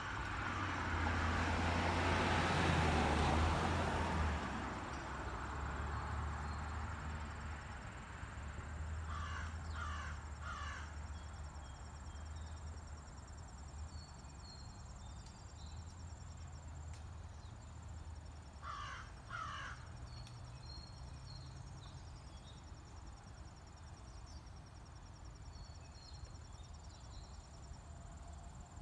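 A crow cawing: three short caws about nine seconds in and two more about nineteen seconds in, over a faint steady high insect trill and a low rumble. A loud rushing noise swells and fades in the first few seconds.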